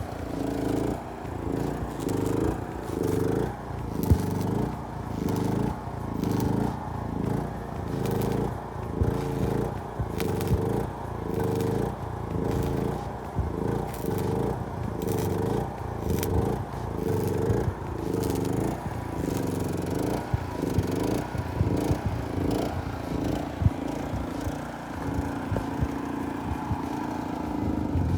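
Background music with a steady beat and a repeating low bass-and-chord pattern.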